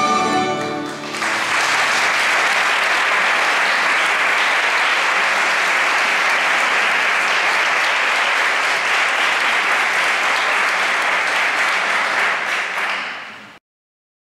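The final held chord of a plucked-string orchestra of bandurrias, lutes and guitars dies away, and about a second in an audience breaks into steady applause, which cuts off abruptly near the end.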